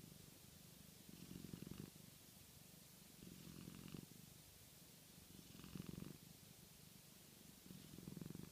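A small pet snoring faintly, four buzzy snores about one every two seconds.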